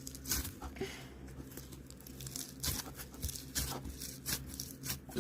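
Slime being stretched and squeezed by hand, giving irregular crackling and popping with scattered sharp clicks.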